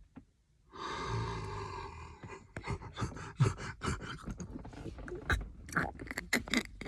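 A man's rasping, zombie-like rattle of breath through phlegm in his chest and throat: one long wet rasp about a second in, then a run of short clicks and hacks.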